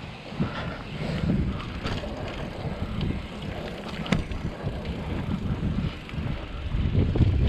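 Mountain bike riding down a dirt forest trail: tyre noise and low wind rumble on the microphone, with sharp rattles and knocks from the bike over bumps, about 2 and 4 seconds in. It grows louder near the end.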